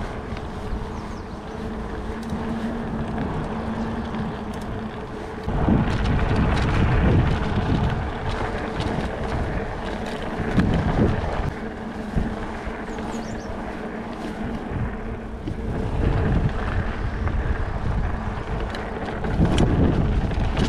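Trek Stache 29-plus hardtail mountain bike riding over a dirt trail: tyres rolling and the bike rattling over the ground, with wind on the microphone. The noise gets louder about five and a half seconds in, again around ten and a half seconds, and near the end.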